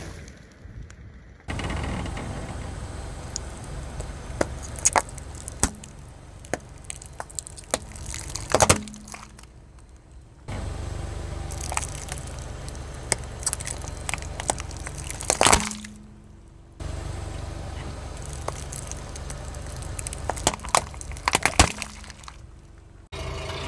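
Car tyre rolling slowly over plastic slime tubs, the plastic cracking and snapping in a run of sharp cracks, with a few louder snaps as tubs burst. The sound comes in several short takes that cut in and out abruptly.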